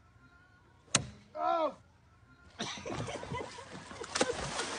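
A golf club strikes a ball with a single sharp crack, followed by a short vocal exclamation. Then water splashes and sloshes as a man falls off a floating dock into a lake, with a sharp hit about four seconds in.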